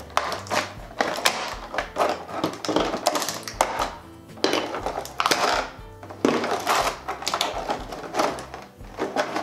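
Clear plastic packaging crinkling and small hard plastic toy molds clicking as a Play-Doh kit is unpacked by hand, in irregular bursts, over background music.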